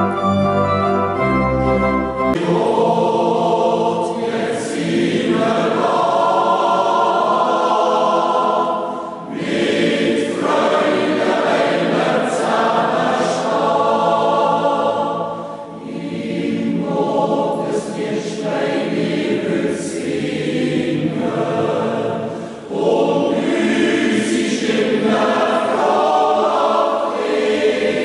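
Church organ chord ending about two seconds in, then a mixed Swiss yodel club choir singing part of a yodel mass in several voices, in long phrases with short breaks between them.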